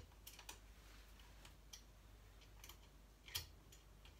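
Faint, scattered clicks of small metal parts as a new blade is worked into a power saw's blade holder, with one sharper click a little after three seconds.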